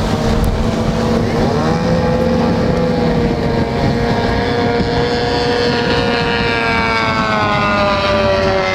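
Several racing outboard motors on small racing boats running at speed across the water, their engine notes overlapping at different pitches. The notes dip briefly about a second and a half in, then slide gradually lower near the end.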